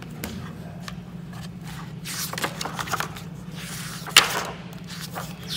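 Hardcover picture book being opened and its pages turned by hand: paper rustling and sliding, with a sharp page flick a little past four seconds in. A steady low hum runs underneath.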